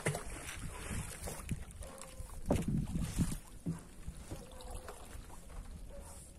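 Water lapping around a small wooden canoe with a low wind rumble, broken by a few soft knocks about a third and halfway through.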